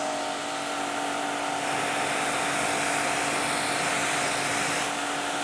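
QPT Q5 2500 W high-pressure washer running, its motor humming steadily under the continuous hiss of the pressurised water jet spraying into the air.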